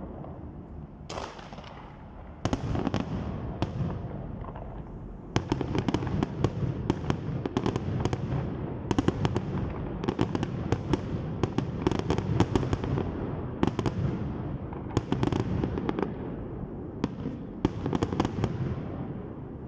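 Aerial fireworks shells bursting with bangs and crackling: a few separate bursts at first, then a rapid, near-continuous barrage from about five seconds in that thins out near the end.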